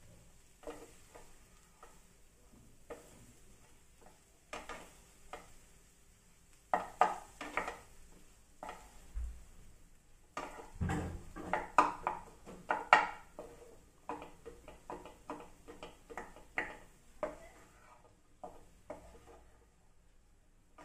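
A spoon scraping and knocking against a cooking pan as mashed potatoes are stirred into fried onions and turmeric, in uneven clusters at first, then a steady run of strokes at about three a second in the second half.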